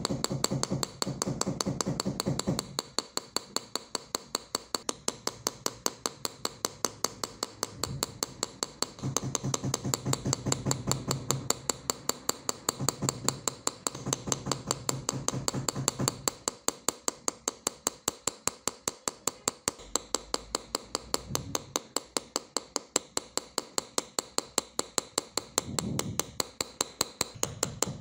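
Light, even metallic tapping of a steel engraving chisel cutting lines into a metal sheet, about four taps a second.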